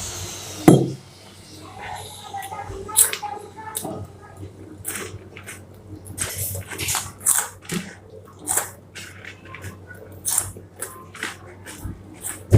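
Close-up chewing of crunchy Kurkure corn puffs: a string of irregular, crisp crunches, with a heavy thump about a second in.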